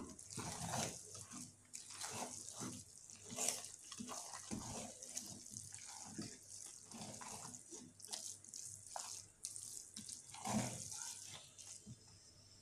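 Wooden spatula stirring washed rice through simmering banga (palm-fruit) sauce in a large metal pot: irregular wet scraping and sloshing strokes, one louder about two-thirds of the way through.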